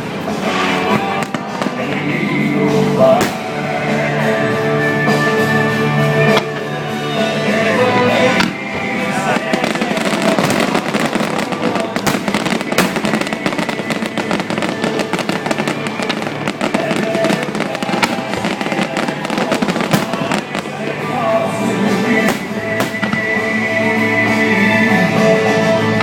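Fireworks exploding in quick succession over loud music with long held notes; the bangs come thickest through the middle.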